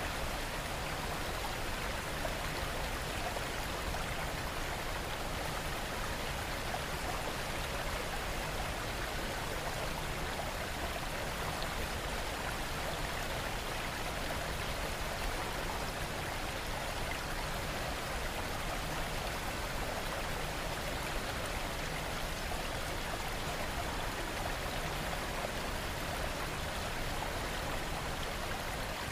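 Steady rain falling, an even hiss that holds at one level throughout, with no breaks or separate drops standing out.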